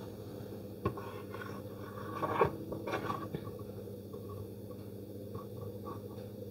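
Electric potter's wheel running with a steady low hum, while a wet sponge and a wooden tool rub against the spinning clay, giving soft wet rubbing and a light knock about a second in, busiest between about two and three and a half seconds.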